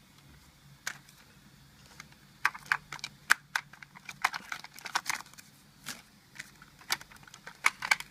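A run of irregular small plastic clicks and taps from the converted Polaroid camera being handled: one click about a second in, then clusters of clicks from about two and a half seconds on.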